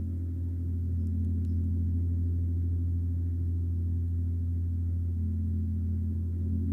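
Gong resonating in a continuous low drone, its deep hum steady and a little louder near the end, as in a gong bath.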